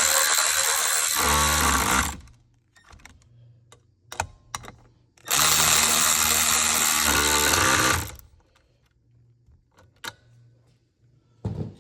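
Power driver with a Torx bit running in two bursts of about three seconds, tightening the seat-latch bracket bolts, each run winding down in pitch as it stops. Small clicks of handling between the runs.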